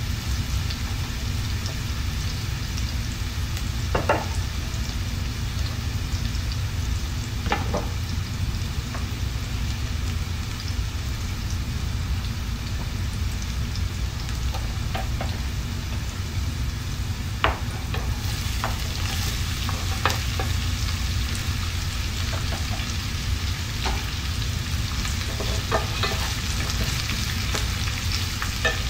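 Oil sizzling steadily in a stainless steel pan as julienned ginger fries, with occasional sharp knocks of a wooden spoon against the pan. About two-thirds of the way through, the sizzle turns brighter as chopped red onion goes in and is stirred.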